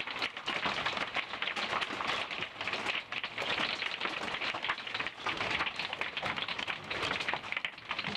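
Rain and hail pelting the roof of an RV during a thunderstorm: a dense, steady patter of many small hits heard from inside the vehicle.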